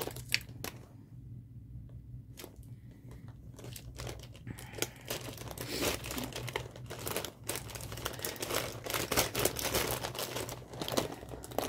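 Mail package being opened by hand: a couple of sharp clicks near the start, then from about four seconds in a continuous crinkling and tearing of crinkly packaging.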